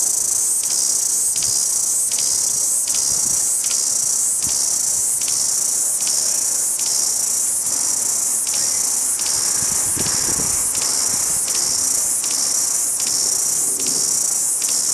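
Cicada singing: a loud, high buzzing hiss that pulses evenly, about once every three-quarters of a second.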